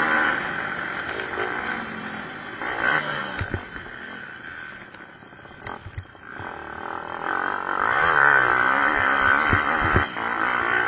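Pit-bike motorcycle engines revving and changing pitch as the bikes race round the track. They fade in the middle and come back louder from about seven seconds in, with a few dull thumps.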